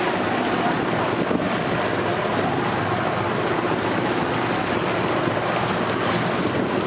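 A boat engine drones steadily under wind buffeting the microphone and the wash of choppy harbour water.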